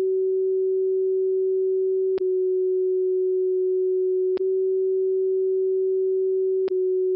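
Icom IC-7300 receiving the steady WWV carrier on 10 MHz as a low, pure CW beat tone, with a brief click and dropout three times as the mode is switched between CW and CW-R. With the reference oscillator at its factory default, the beat note is about 3 Hz different between the two modes, the sign that the oscillator is off calibration.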